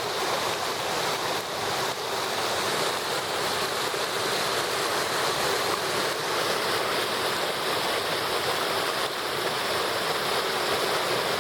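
Waterfall: falling water rushing in a steady, even roar.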